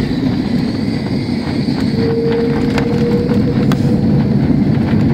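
Loud, steady rumble inside a jet airliner's cabin as it rolls out along the runway just after touchdown: engine noise and wheel rumble together. A steady whine joins in about two seconds in and lasts just over a second.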